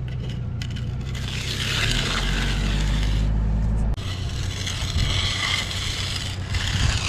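Steel hand tool scraping over fresh concrete in repeated strokes, as when a slab's edges are run with an edger, with an engine running steadily underneath.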